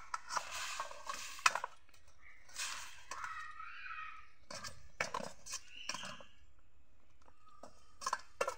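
Cut giant taro and potato pieces tipped from a steel bowl into a black iron karahi of hot water: scraping and clinking of the bowl on the pan's rim and the pieces sliding and dropping in, in several short spells.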